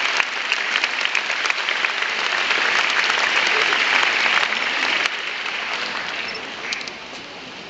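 Audience applause: many people clapping steadily. The clapping thins out about five seconds in and dies away near the end.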